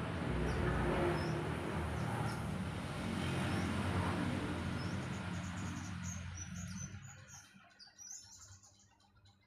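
Small birds chirping repeatedly over a low, steady rumble of passing traffic; the rumble fades away about seven seconds in, leaving the chirps.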